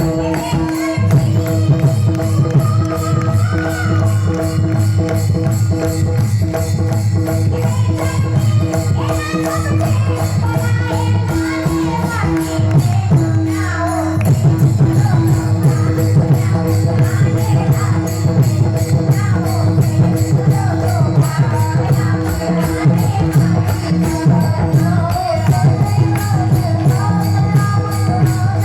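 Pakhawaj drumming, fast and dense, with amplified music: a steady held drone, a wandering melodic line and jingling percussion. The drumming drops out briefly about halfway through.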